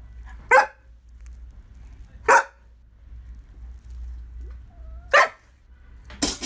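A dog barking three times: single short barks spaced about two to three seconds apart.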